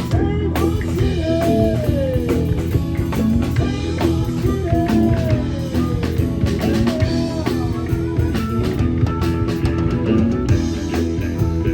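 Rock music with electric guitar and a drum kit, guitar lines bending in pitch over a steady beat.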